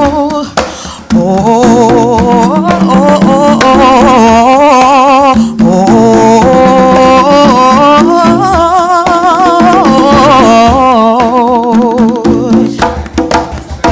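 Music: the closing section of a song, a wordless melody with strong vibrato over backing instruments, breaking into choppier, percussive playing near the end.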